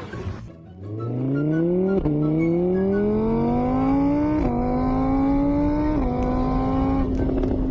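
A motor-vehicle engine accelerating through the gears: its note climbs steadily, drops sharply at each of three gear changes, then holds steady at speed.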